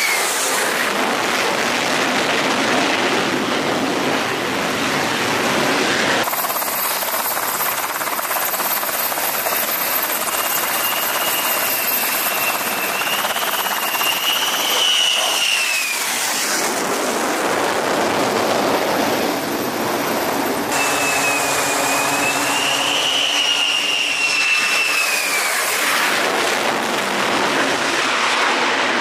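F-35C Lightning II jet engines: a loud steady roar with a high turbine whine that swells and then falls in pitch as a jet goes past. The sound changes abruptly several times between separate takes.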